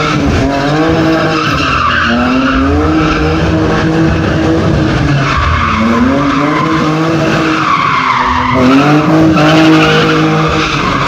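A drift car's engine revving hard again and again, its pitch climbing and dropping about four times, over the steady screech of tyres spinning and sliding.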